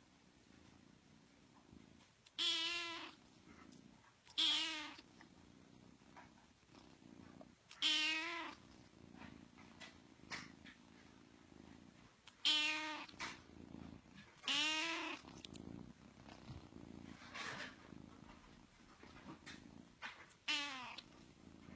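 Kitten purring with a steady low rumble, broken every few seconds by a loud, high, wavering call about half a second long, six of them in all.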